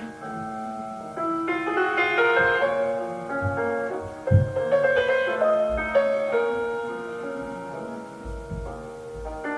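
Classical piano music: a slow, lyrical melody over held chords.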